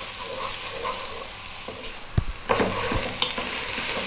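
Diced carrot, potato, onion and red lentils sizzling in hot oil in a nonstick pot while being stirred with a wooden spoon. The spoon scrapes through the vegetables and knocks against the pot a couple of times about two seconds in, after which the sizzle grows louder.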